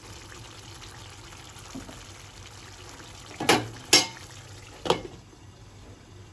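Chicken legs in oily gravy simmering in a pan with a soft, steady bubbling sizzle. Between about three and a half and five seconds in there are three sharp clanks as a glass lid is handled and set on the pan, after which the sizzle sounds duller under the lid.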